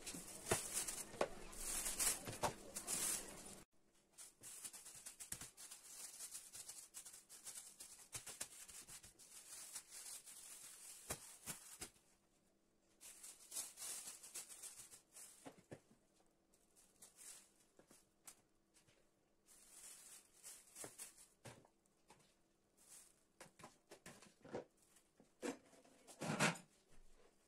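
Thin plastic bags rustling and crinkling as they are handled and filled with minced meat, with scattered small clicks and a louder crinkling stretch in the first few seconds. A soft thump near the end.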